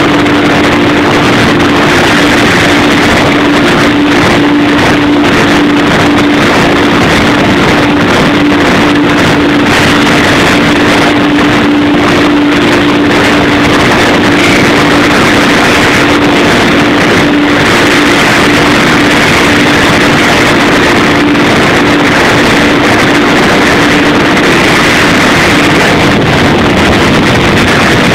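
Weaving looms running in a weaving shed: a loud, steady mechanical din with a constant hum underneath.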